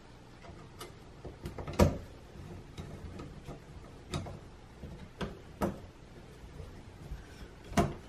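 Screwdriver turning the mounting screw of a wall dimmer switch into its electrical box: irregular sharp clicks and knocks of metal on metal and plastic, the loudest about two seconds in and another just before the end.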